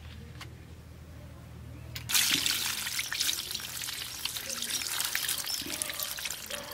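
Water poured from a steel bowl splashing over river crabs in a woven basket as hands rinse them, starting suddenly about two seconds in. Before it only a low steady hum.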